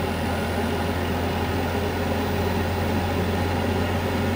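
Variable-speed draft inducer of a Carrier Infinity 96 (58MVB) two-stage gas furnace running steadily at high speed, a constant hum with fan noise. It is pre-purging the heat exchanger and establishing airflow before the pressure switch closes and ignition begins, spinning faster because the furnace is starting in high heat.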